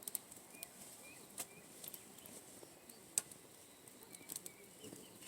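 Wood campfire crackling, with irregular sharp pops and snaps; the loudest pop comes about three seconds in.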